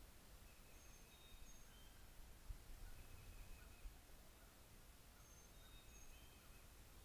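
Near silence with faint distant bird song: short, thin whistled notes at several pitches, the same phrase coming twice. Low background rumble, with two faint low thumps in the middle.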